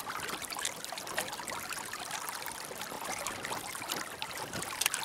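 Water splashing and rushing along the side of an inflatable dinghy driven by an electric trolling motor at its third speed setting: a steady wash with many small splashes.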